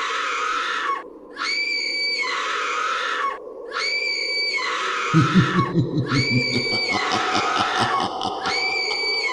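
Horror sound effect: a high-pitched shriek repeated about every two seconds over a steady low drone. Rapid low grunting joins about halfway through.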